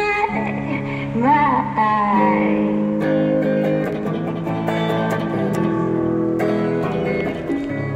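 A woman singing a wavering sung line for about the first two seconds, then a Telecaster-style electric guitar strumming chords on its own.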